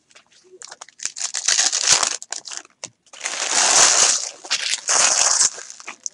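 Foil trading-card pack wrappers crinkling as they are handled, in three spells, the middle one longest and loudest.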